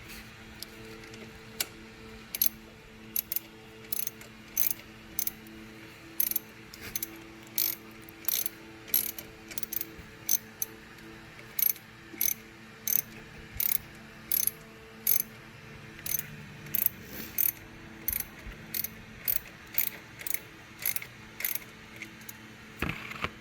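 Ratchet wrench clicking as a bolt is tightened back in, in short sharp strokes about one or two a second.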